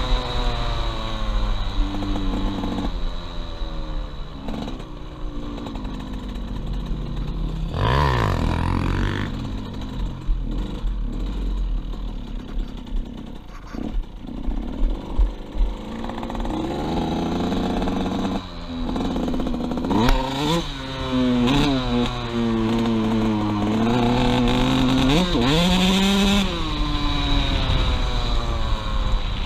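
KTM 85 SX two-stroke dirt bike engine being ridden, its pitch climbing and falling again and again as the throttle opens and closes through the gears. It drops to a quieter, lower run in the middle, with a few sharp clicks.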